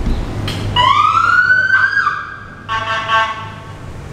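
Police siren giving a short rising wail that holds for about a second, then a brief buzzy horn blast about two and a half seconds in, most likely from a police motorcycle.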